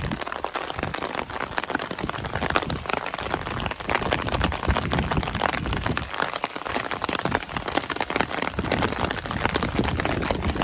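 Heavy stormy rain: a steady hiss of downpour with dense crackling of drops striking close by.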